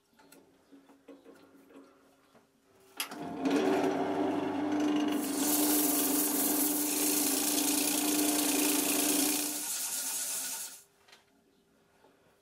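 Wood lathe switched on about three seconds in, running with a steady hum while folded 180-grit sandpaper is pressed against the spinning oak, giving a rough, loud sanding hiss. The lathe winds down and the sanding stops about a second before the end.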